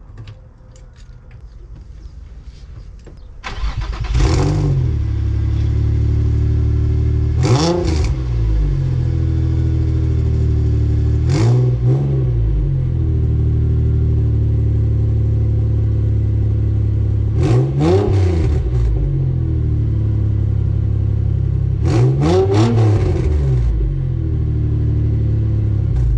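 Nissan 350Z's V6 started about three and a half seconds in, then idling with about five quick throttle blips that rise and fall. The owner blames the sound on a worn-out Y-pipe and old exhaust, which he calls a "wet fart" sound.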